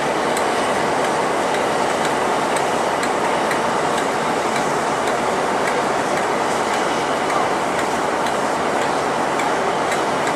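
Diesel locomotive Class 52 D1009 'Western Invader' rolling slowly past under tow: a steady rushing noise with light wheel clicks over the rail joints about once or twice a second.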